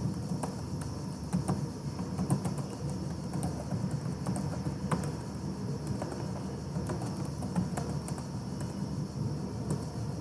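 Computer keyboard keys clicking in irregular runs of typing, over a steady low background hum.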